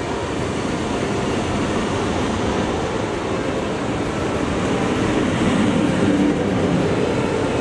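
Regio 2N double-deck electric multiple unit rolling past the platform at low speed: a steady rumble of wheels on rail and traction equipment, with light wheel clatter, swelling a little about five seconds in.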